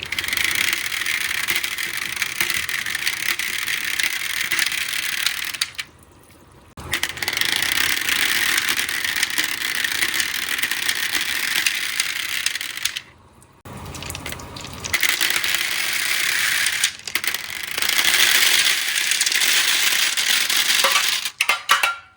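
Marbles rolling and rattling along a water marble run's track in long continuous runs, broken by short gaps about six and thirteen seconds in.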